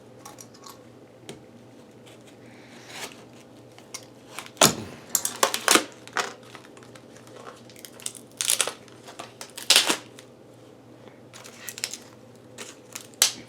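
Irregular clicks, taps and light rustling from handling a laptop's drive and small parts, with the loudest knocks about four to six seconds in and again near ten seconds.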